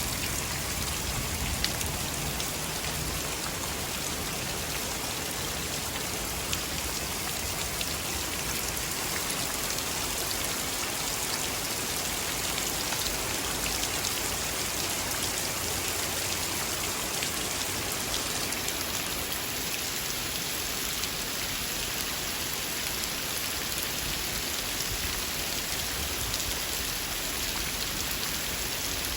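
Steady rain falling and pattering on surfaces, with a few sharper drop ticks standing out now and then.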